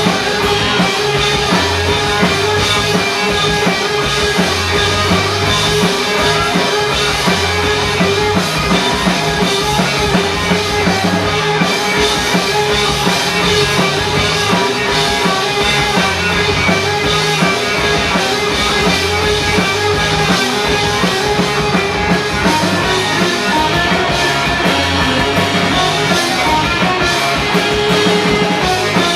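Loud instrumental rock music with a steady drum-kit beat, bass and guitar, and a note held throughout.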